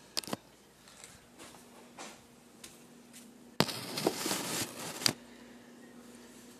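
Handling noise from a camera being moved: two sharp clicks, then about a second and a half of rubbing and rustling that starts suddenly and ends in a sharp knock.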